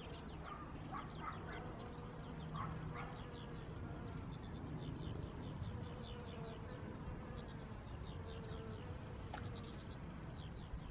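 Bees buzzing steadily, a low continuous hum, with a fast high ticking trill repeating over it several times.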